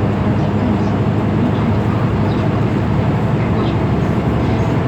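Steady interior noise of a Daewoo NEW BS090 diesel city bus under way: an even low engine drone mixed with road rumble, heard from inside the cabin.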